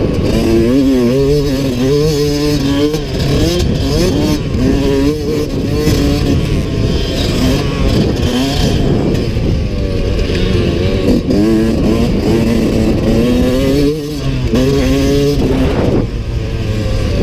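Yamaha YZ125X's single-cylinder two-stroke engine under way, revving up through each gear and dropping back again and again as the throttle opens and closes.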